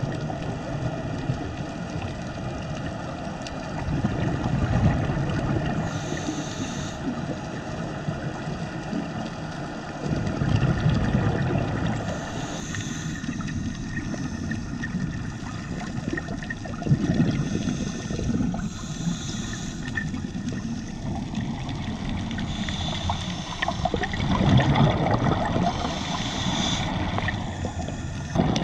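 Scuba diver breathing through a regulator, heard underwater: a short hiss on each inhale and a rush of exhaled bubbles, about one breath every six to seven seconds, four breaths in all.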